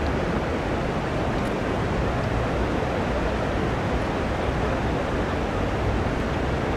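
Steady city ambience by a river: a constant, even rush of passing traffic and flowing river water, with no single sound standing out.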